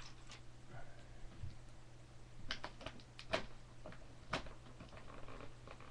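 Cardboard box being opened by hand: scattered sharp taps and knocks on the cardboard with some rustling of the flaps and packing, the loudest knocks about three and four seconds in.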